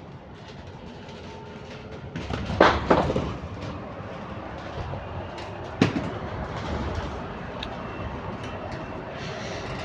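Inside a moving London bus: a steady low rumble, with two loud knocks about two and a half seconds in and a single sharp clack about six seconds in.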